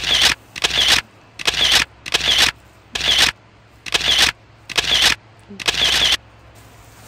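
Camera shutter clicks, about eight in a row, a little under one a second, stopping about six seconds in.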